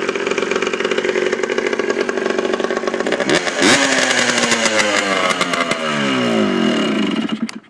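2001 Yamaha Blaster's 195cc single-cylinder two-stroke engine running with its exhaust silencer off. It idles, is revved sharply about three seconds in, then its pitch falls away as it winds down, and it cuts off suddenly near the end. The owner blames a lack of top-end power on a reed spacer.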